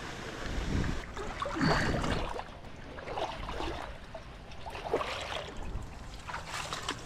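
Water sloshing and splashing in short, irregular bursts.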